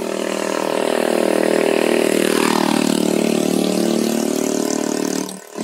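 Yamaha Jupiter Z motorcycle engine running, its revs falling about halfway through and then holding steady. The sound drops away just before the end.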